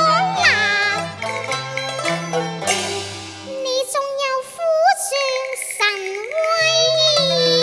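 Cantonese opera singing by a child, the voice sliding between notes and holding a long note near the end, accompanied by a Chinese ensemble with plucked pipa and a bass line from the cello.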